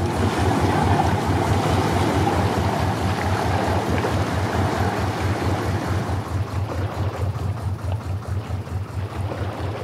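Boat engine running at idle: a steady, fast low throb, with a wash of wind and water noise over it that eases after about six seconds.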